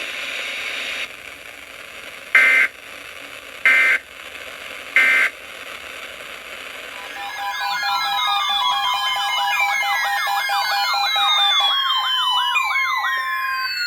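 Three short bursts of Emergency Alert System data tones, about a second and a quarter apart: the end-of-message code that closes a broadcast alert, heard over radio hiss. From about seven seconds in, overlapping electronic siren-like tones build up, several wailing and warbling up and down in pitch at once.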